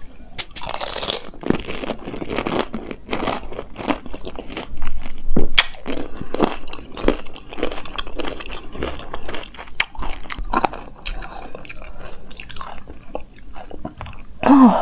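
A golgappa (pani puri), its crisp fried shell filled and dipped in spiced water, being crunched and chewed whole in the mouth. Irregular crisp crunches with wet chewing run throughout, the loudest crunches about five seconds in.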